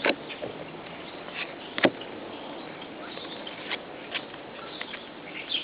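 Yu-Gi-Oh trading cards and booster packs being handled: scattered light clicks and rustles, with one sharper click about two seconds in.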